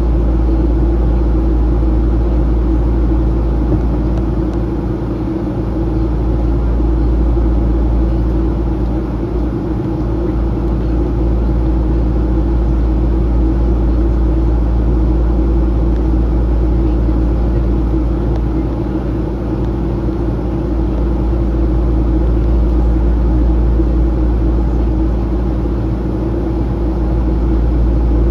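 Steady cabin drone of a Boeing 737-800 in flight, heard from a window seat beside its CFM56-7B turbofan engine: a deep, even rumble with a few steady low hums riding on it.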